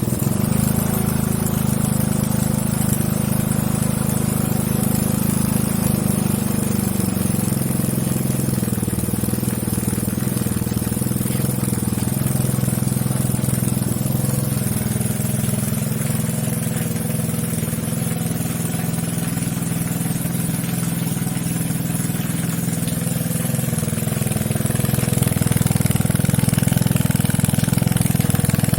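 Homemade four-stroke engine built from a refrigerator compressor running steadily, a little louder near the end.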